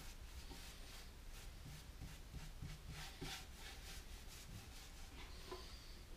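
An inch-and-a-half paintbrush rubbing exterior latex paint into the end grain of a wooden hive box: a run of faint, quick brush strokes, with a soft knock near the end.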